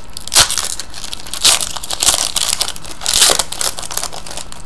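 Foil trading-card pack wrapper crinkling and crackling as it is handled and crumpled in the hands, in several louder bursts.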